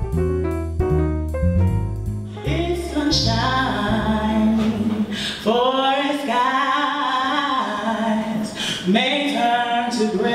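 Piano and bass music for about two seconds, then a woman singing a cappella into a microphone: a slow, unaccompanied song with long held notes.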